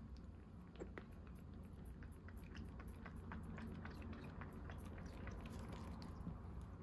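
Baby kitten suckling formula from a nursing bottle: quick, soft wet smacking clicks of its mouth on the teat, several a second, over a low steady hum.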